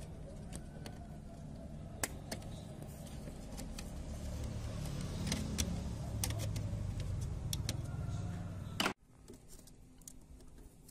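Light clicks and taps of a small screwdriver and small parts on a laptop motherboard, over a steady low background rumble. The rumble cuts off abruptly about nine seconds in, leaving fainter clicks.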